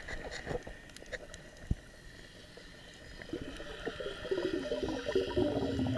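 Muffled underwater sound picked up by a camera in a waterproof housing: water sloshing and gurgling against the case, with a few soft clicks early on. From about halfway through it grows louder into a muffled, wavering tone.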